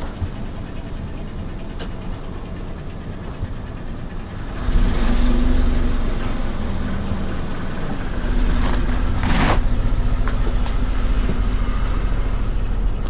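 Car rolling close by with a low engine and tyre rumble that gets louder about five seconds in, and one short sharp crack a little past halfway as an object is crushed under the tyre.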